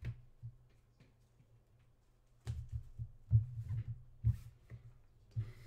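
Handling noise of hands and trading cards on a desk: a run of dull low thumps with a few light clicks, thickest around the middle.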